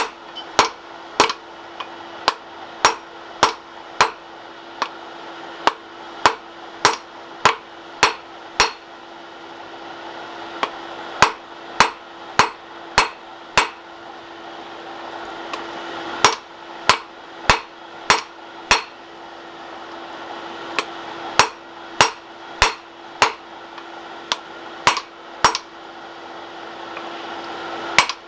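Hand hammer blows on a hot bar of roughly 1080 carbon steel, about two ringing strikes a second in runs with short pauses, as the end of a flatter blank is chamfered.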